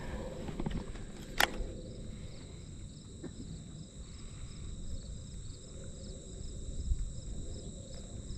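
Insects trilling in a steady, evenly pulsing chorus, with one sharp click about a second and a half in.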